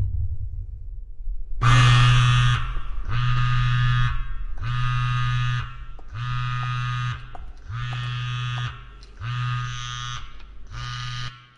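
Mobile phone on vibrate buzzing against a hard surface: seven buzzes of about a second each, roughly one every second and a half, as an incoming call.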